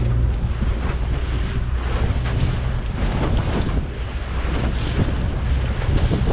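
Wind buffeting the microphone and water rushing and slapping against the hull of a small aluminium boat under way on a choppy sea, with its motor running low underneath.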